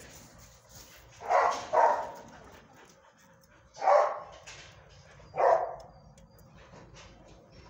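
A dog barking four times: two barks close together about a second and a half in, then single barks at about four and about five and a half seconds.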